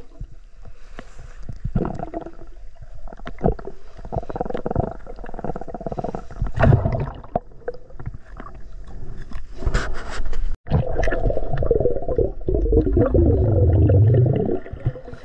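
Muffled underwater water movement and gurgling bubbles heard through a submerged camera, with scattered knocks and clicks. A longer stretch of wavering gurgle comes about eleven seconds in.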